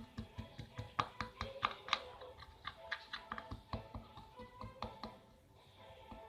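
Spoon tapping and scraping in a bowl in quick, irregular clicks while stirring and crushing a crumbly mix of tapioca starch, baby powder and a little water. The taps die away about five seconds in.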